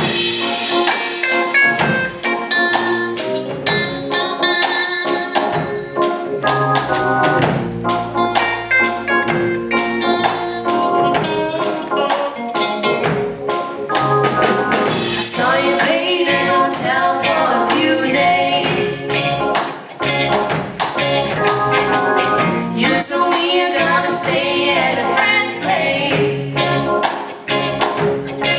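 Live band playing a pop-rock song: a drum kit keeping a steady beat under electric guitar, bass guitar and an organ-voiced synthesizer.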